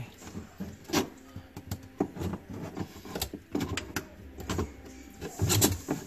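Irregular plastic clicks, knocks and rattles of a refrigerator evaporator fan motor being worked by hand out of its plastic shroud, the loudest cluster coming shortly before the end.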